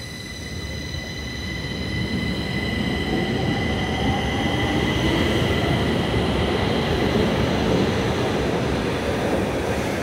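Stockholm metro train pulling out and accelerating along the platform. Its electric traction motors give a whine that climbs in pitch over a steady high whistle, and the wheel and track rumble grows louder about two seconds in.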